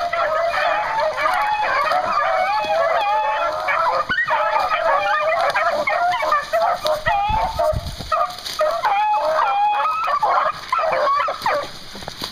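A pack of beagles giving tongue while running a rabbit: many overlapping bawls and chops in a dense chorus. A brief low rumble comes about seven seconds in. Near the end the chorus thins to a few short, evenly spaced calls.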